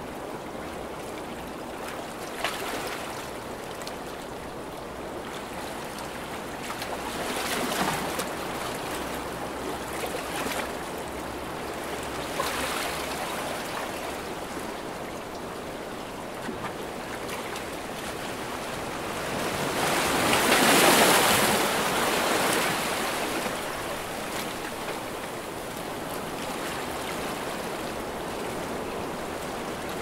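Sea waves washing in on a shore, a steady rush that swells and falls back every few seconds, with the biggest wave breaking about two-thirds of the way through.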